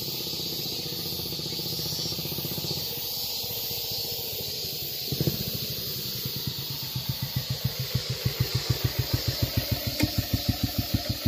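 Kawasaki 250 Meguro SG's single-cylinder four-stroke engine as the motorcycle rides up. From about seven seconds in it runs close by at a slow, even beat of about five or six thumps a second, growing louder.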